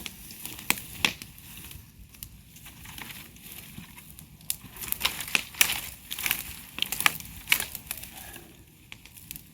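Bonfire crackling: irregular sharp pops and snaps over a soft hiss, coming thickest in the middle and thinning near the end.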